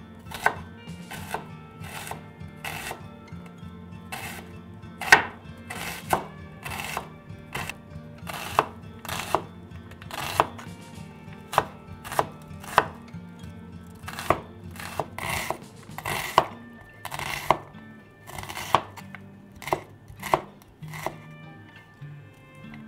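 Chef's knife dicing an onion on a wooden cutting board: steady, sharp chops, a little more than one a second.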